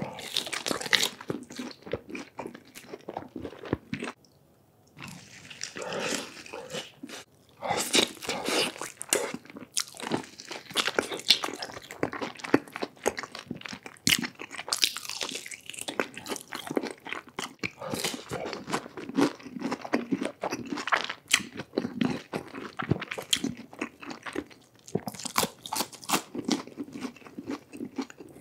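Close-miked eating: a person biting into and chewing crispy fried chicken nuggets, many short sharp crunchy bites and chews with wet mouth sounds, pausing briefly about four seconds in.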